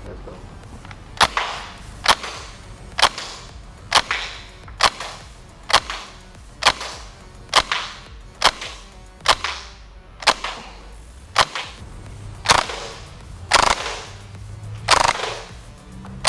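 Gas blowback gel blaster, a Well G55 MP5K replica running on green gas, fired in single semi-automatic shots into a chronograph: a sharp crack roughly once a second, about sixteen shots in all.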